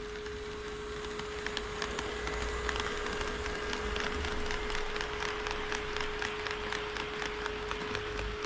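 HO scale model train running past on the track, its wheels clicking quickly over the rail joints, about four clicks a second, from about a second in until near the end. A steady high hum sounds underneath.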